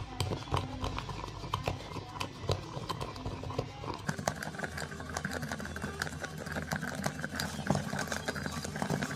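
A metal spoon beating instant coffee, sugar and a little water fast in a glass tumbler: a quick, uneven run of clicks and taps of spoon against glass as the mixture is whipped into a thick coffee paste.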